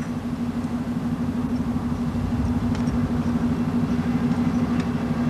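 Steady machinery hum: a constant low drone over a rumble, with a few faint clicks.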